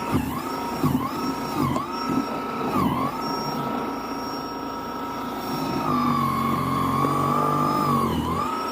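Snow Joe cordless snow blower's electric motor running with a high whine. Its pitch dips briefly and recovers about once a second at first, then holds steady. About two-thirds of the way through it settles a little lower, with a rougher low hum, for a couple of seconds.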